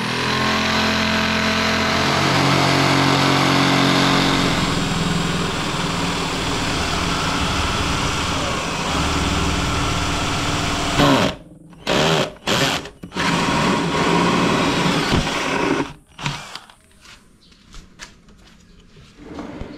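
Electric drill with a hole saw cutting through a white-faced plywood board: the drill runs steadily under load for about eleven seconds, then is started and stopped in several short bursts. A few light clicks and knocks follow near the end.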